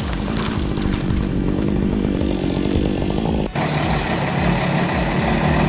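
Engine running steadily. About three and a half seconds in, an abrupt cut switches to another steady engine.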